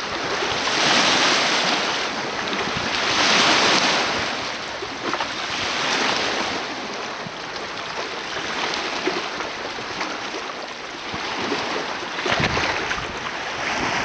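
Wind-driven lake waves washing against the shore, with wind buffeting the microphone; the rush swells and eases in gusts, and there are a few low wind thumps near the end.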